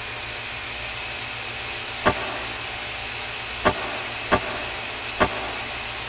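Server racks' cooling fans whirring in a steady hum with a faint high whine, broken by four sharp, unevenly spaced clicks.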